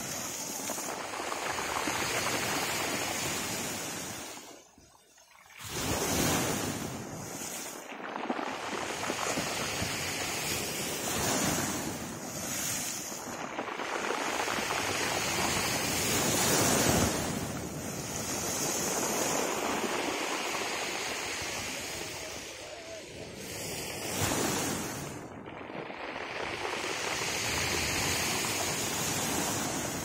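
Sea waves breaking against a stone seawall and washing over a pebble shore, a continuous rush of surf that swells and ebbs with each wave, with a brief lull about five seconds in.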